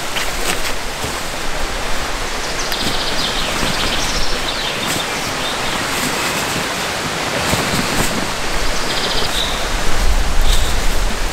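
Steady rushing noise of rain falling on the forest and the flowing water of a creek, with scattered sharp ticks of drops.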